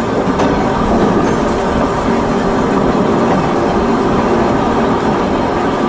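Volk's Electric Railway car running along its narrow-gauge track: a steady electric hum over the rumble of its wheels on the rails, with a faint click under half a second in.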